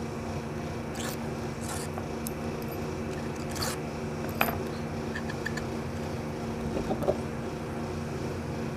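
Steady machine hum with a few light scrapes and clicks of metal parts being handled as a seized Embraco fridge compressor is taken apart.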